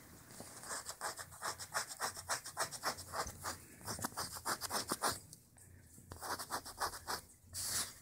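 Quick, repeated scratching on paper scratch-off cards, about four or five strokes a second, with a short pause about five seconds in.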